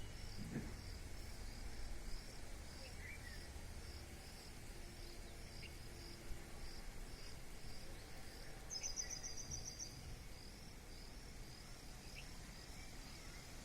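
A cricket chirping in an even rhythm, a little over one chirp a second, over a low rumble of outdoor noise. About nine seconds in, a fast high trill joins for about a second.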